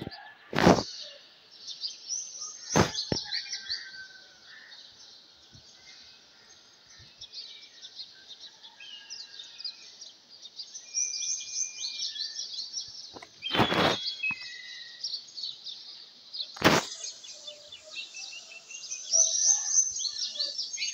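Dawn chorus of many small birds chirping and twittering densely. Four short sharp thumps break through, two near the start and two in the second half.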